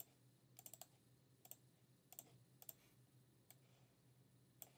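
Faint clicks of a computer mouse and keyboard, about eight short clicks at uneven intervals, a few in quick pairs.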